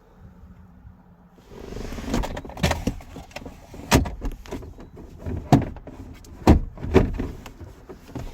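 Handling noise around a pickup truck's cab: rustling with a run of about six sharp clunks and knocks, starting a second and a half in.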